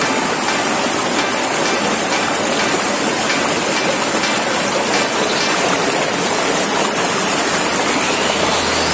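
Stream water rushing steadily over granite boulders in a small cascade.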